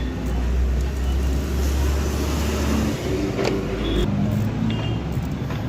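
A motor vehicle engine running with a steady low drone that shifts in pitch, and one sharp click about three and a half seconds in.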